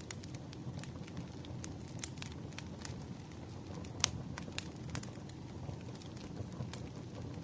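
Wood fire burning: a steady low rumble with scattered crackles and pops, and one sharper pop about four seconds in.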